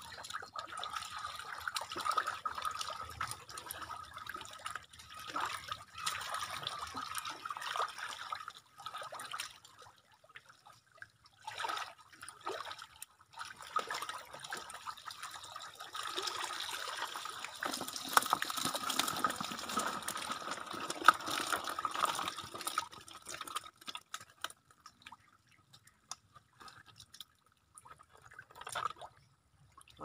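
Water splashing and running in uneven spells of a few seconds, with short pauses between, dying down to a few brief splashes near the end.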